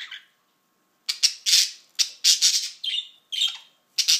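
Caged pet budgerigars squawking: a quick string of about seven short, harsh, high-pitched calls, starting about a second in.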